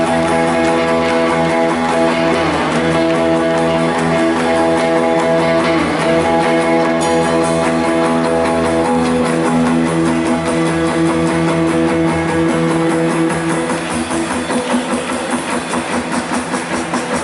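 Live rock band playing amplified guitar: a sustained, droning chord with a couple of sliding pitch bends. Near the end a regular pulse of about four beats a second comes in.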